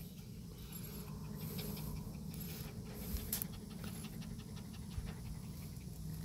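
Small long-haired dog panting rapidly and steadily, right up close to the microphone.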